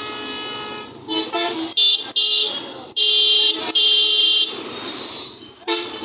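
Road-vehicle horns honking in a traffic jam: a held tone in the first second, then a string of blasts, several short ones and two longer ones of about a second each, and one more short toot near the end.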